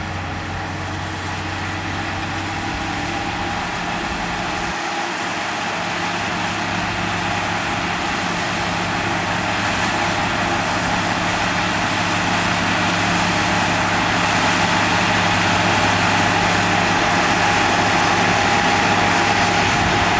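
Heavy diesel engine of earthmoving machinery running steadily, growing gradually louder as the machine comes closer or works harder.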